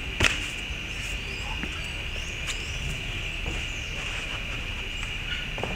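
A single sharp thud about a quarter of a second in: feet landing from a parkour jump. Under it a steady high-pitched insect drone, with a few short bird chirps.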